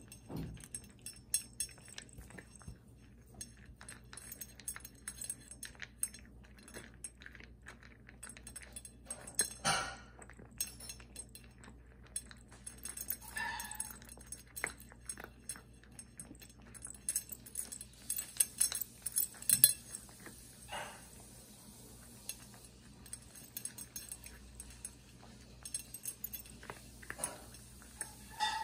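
A cat eating from a stainless steel bowl: irregular clicks and clinks of its mouth, food and dangling collar tag against the metal bowl, thickest and loudest about two-thirds of the way through.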